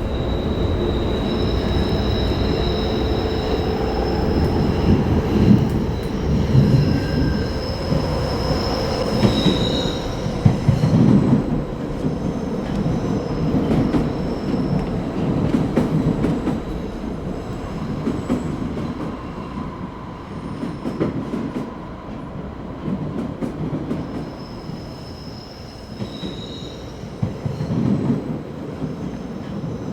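Film sound effect of a heavy metallic rumble with long, high, steady squeals that come and go, like steel wheels squealing on rails. The rumble swells about a quarter and again near the end.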